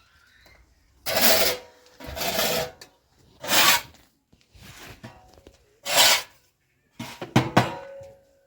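Rough rasping, scraping strokes, about five of them, each under a second long, with a few sharp clicks among the last ones near the end.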